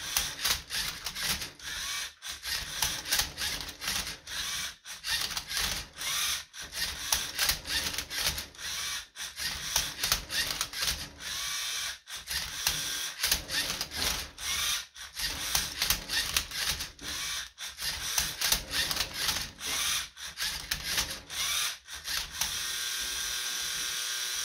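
LEGO Mindstorms EV3 MindCuber robot solving a Rubik's cube: its motors whir in quick short bursts as the turntable twists and the arm flips the cube, with clicks and clacks between moves. Near the end it runs in one steadier whir for about two seconds.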